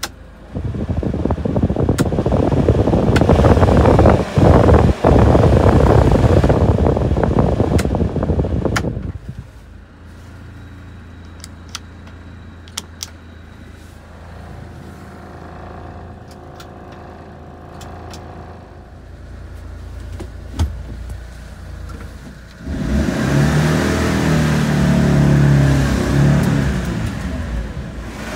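1996 Mitsubishi Minicab kei truck cab: the heater blower fan runs loudly for about eight seconds, then cuts off. The 660 cc three-cylinder engine idles under a few clicks from the controls, and in the last few seconds it revs, rising and falling in pitch.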